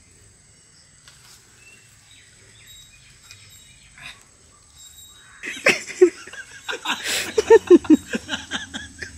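A quiet stretch, then about five seconds in men break into loud laughter, a run of quick repeated 'ha' bursts, at their loudest near the end.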